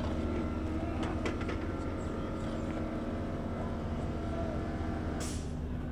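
A steady, low engine drone with a constant hum, and a brief hiss about five seconds in.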